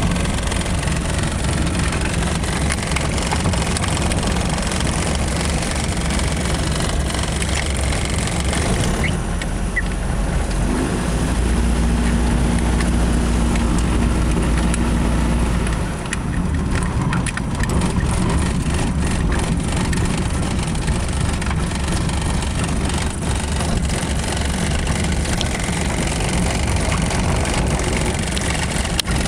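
Fournier RF-5 motor glider's engine running at low power while the aircraft rolls and taxis after landing, heard from inside the cockpit along with the rumble of the wheel on the tarmac. The note holds steadier and deeper for a few seconds midway.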